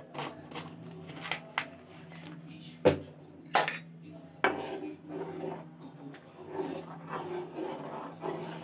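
Kitchen utensils clattering: light clicks, a sharp knock near three seconds, a ringing metal clink just after, then a metal spoon scraping and stirring in an aluminium pot of milk, over a steady low hum.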